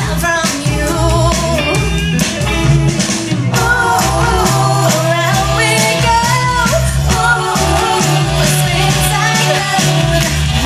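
Rock-and-roll song playing, with a steady bass and drum beat under a wavering melody line.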